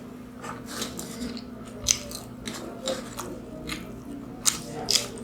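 Close-up chewing and biting of Mughlai paratha, an egg-stuffed fried flatbread: irregular wet mouth smacks and clicks, with sharper ones about two seconds in and near the end, over a faint steady hum.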